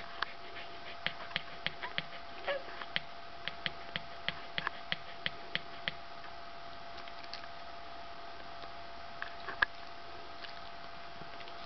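Two-day-old white keeshond puppies suckling at their mother's teats, making a run of sharp wet clicks about two or three a second, then fewer, with one louder click near the end. A faint steady hum runs underneath.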